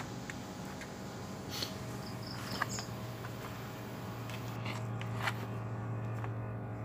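A plastic spoon scooping soft mashed cassava into an aluminium baking tin, with a few light knocks against the tin or bowl, over a steady low hum.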